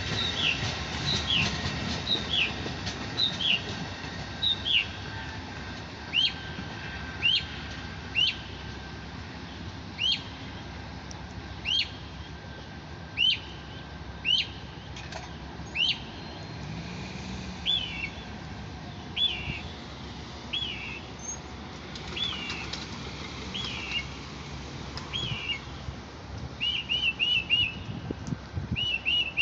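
A songbird singing a short slurred whistled note over and over, about once a second, changing near the end to quick runs of three or four notes. The low rumble of a passing Amtrak train fades away in the first couple of seconds.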